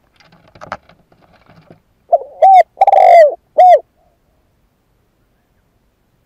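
Spotted dove cooing close by: a single three-note phrase, a short coo, a longer swelling coo and a short coo, about two seconds in, preceded by faint clicks and rustles. It is the call of a caged decoy dove, used to provoke wild doves.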